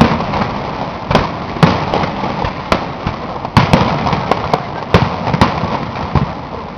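Aerial fireworks display: a string of sharp bangs from bursting shells at irregular intervals, about a dozen, over a continuous background rumble and crackle. The display grows quieter near the end.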